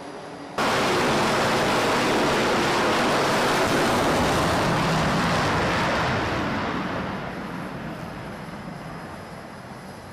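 Loud jet roar of a carrier catapult launch, cutting in suddenly about half a second in, holding steady, then fading away over the last few seconds as the aircraft leaves.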